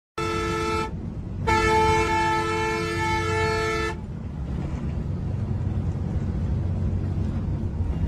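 Bus horn sounding a short blast and then a longer one of about two and a half seconds, several steady tones at once. After the horn stops, only the low, steady noise of the moving bus's engine and road is left.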